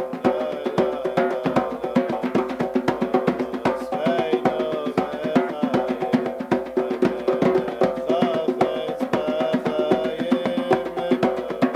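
Two hand drums, one a skin-headed djembe, played with bare hands in a fast, dense rhythm, with a sustained melody over them.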